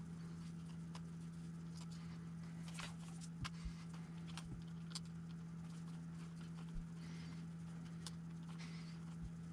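Scattered light clicks and taps of small RC truck parts and tools being handled during disassembly, over a steady low hum.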